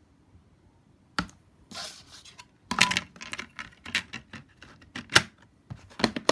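Plastic DVD case being handled: a disc is pressed onto the case's centre hub and the case is clicked shut, giving a run of sharp plastic clicks and short scrapes that starts about a second in, with the loudest snap near the end.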